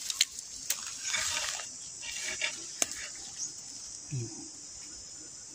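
Hands rustling through dry grass while picking bamboo shoots, with a few sharp snaps as the shoots are broken off.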